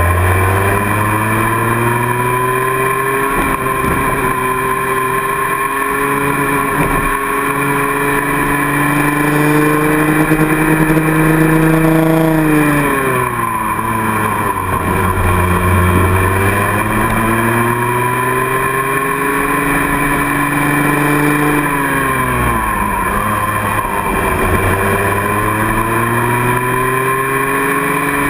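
Onboard sound of a racing kart's two-stroke engine at race pace. Its pitch climbs steadily along the straights, drops sharply twice as the kart slows for corners (a little before halfway and again about four-fifths of the way through), then climbs again.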